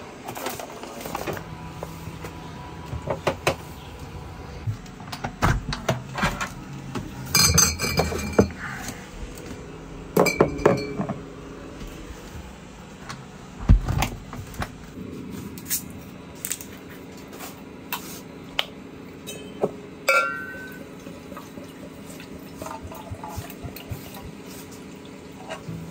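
Galley items being handled: a run of clinks and knocks, a few glass clinks that ring briefly, and one heavier knock about halfway through. Near the end, sparkling water is poured from a glass bottle into insulated metal tumblers.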